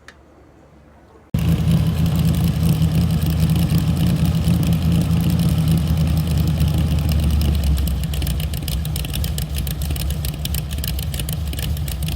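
A car engine running steadily. It begins abruptly about a second in, with no cranking, and holds an even low drone.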